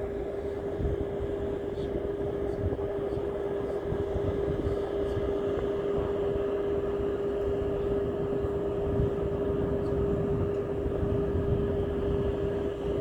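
A motor running steadily, with a constant hum over a low rumble.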